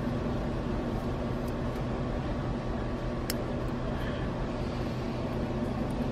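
Steady machine hum, like a fan or heater running in a shop, with one small sharp click about three seconds in.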